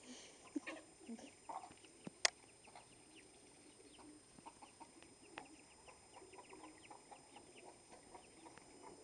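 Chickens clucking softly, with short high chirps repeating throughout and a sharp click about two seconds in.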